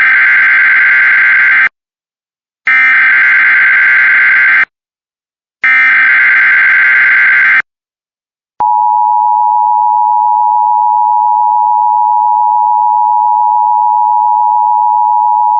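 Emergency Alert System SAME header: three loud two-second bursts of buzzy data tones about a second apart. After a short pause, a long steady alert tone begins about nine seconds in and holds, the attention signal that comes before a weather warning message.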